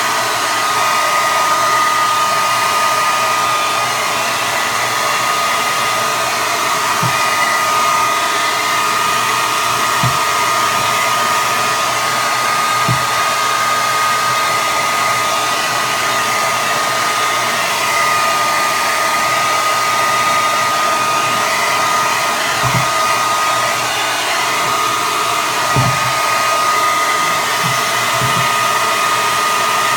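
Hand-held hair dryer blowing steadily, a constant rush of air with a high motor whine, with a few faint low knocks now and then.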